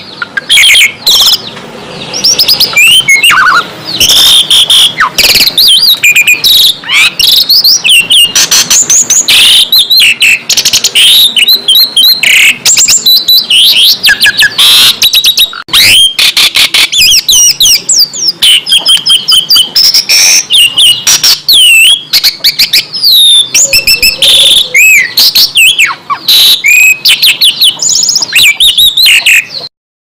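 Songbird song, loud, dense and harsh: rapid chirps, whistled slurs and sharp scratchy notes crowded together with hardly a pause. It stops abruptly near the end.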